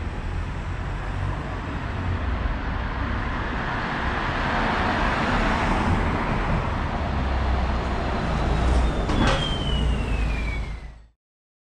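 A Dublin Bus double-decker passing close by: engine rumble and tyre noise swell as it approaches. A high whine falls in pitch as it goes past, and there is a sharp knock about nine seconds in.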